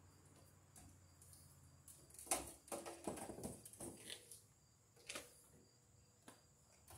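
Faint rustling and clicks of 14-gauge sheathed electrical cable being handled, pulled and bent into a breaker panel, mostly in a cluster about two to four seconds in, with one more click near five seconds.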